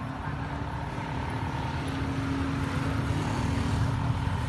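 A motor engine running, a low steady hum with faint steady tones that grows a little louder.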